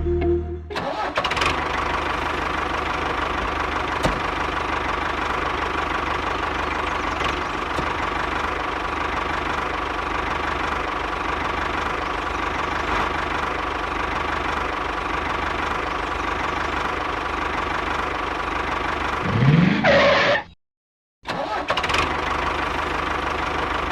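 Small motor of a miniature concrete mixer running steadily, with a constant whine. About nineteen seconds in there is a brief rising sweep, then the sound cuts out for half a second and the motor runs on.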